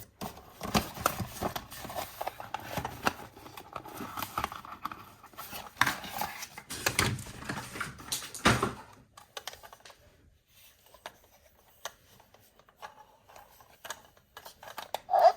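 Close-up handling of plastic toys and packaging: a busy run of clicks, taps and rustles for about the first nine seconds, then only scattered light clicks.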